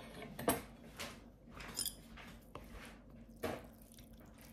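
Wooden chopsticks knocking and clinking against a ceramic bowl as noodles are stirred: a few separate light taps, one about two seconds in ringing briefly.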